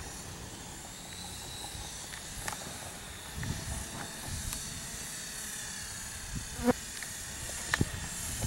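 Small quadcopter drone flying at a distance: a faint high whine from its propellers, drifting slightly in pitch, over a steady hiss, with a few light clicks.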